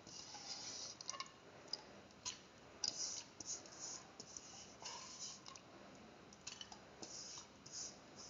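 Soaked red lentils being pushed around by hand in a stainless steel pressure cooker pot: faint, scattered clicks and short scratchy rustles.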